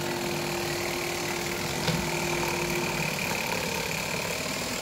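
Cordless electric fillet knife (Bubba Blade) running steadily, its reciprocating serrated blades sawing through a peacock bass. The motor's hum shifts a little about three seconds in.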